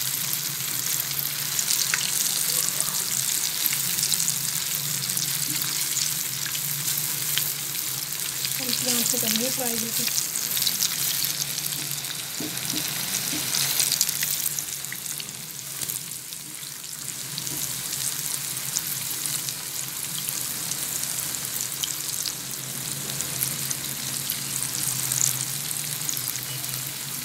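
Steamed chana dal mangochi (lentil dumplings) sizzling steadily as they fry in hot oil in a pan, with fine crackles throughout, while a silicone spatula stirs and turns them.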